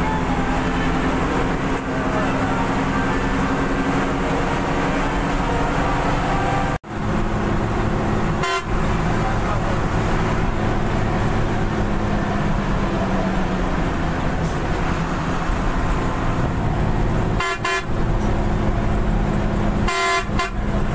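Bus engine and road noise heard from inside the cab of a highway coach during an overtake, with short horn toots about eight seconds in and twice near the end. The sound cuts out for an instant about seven seconds in.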